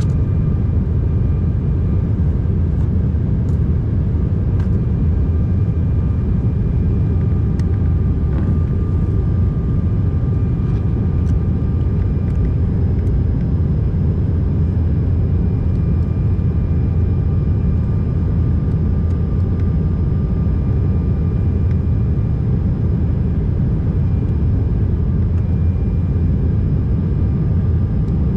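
Steady cabin noise inside an Embraer 190 airliner in its climb: a deep, even rumble of airflow and its two GE CF34-10E turbofan engines, with faint steady whining tones above it.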